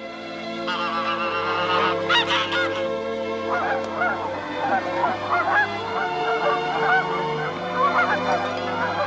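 A flock of geese honking and cackling, starting about a second in and growing into a dense chorus of overlapping calls. Sustained background music plays underneath.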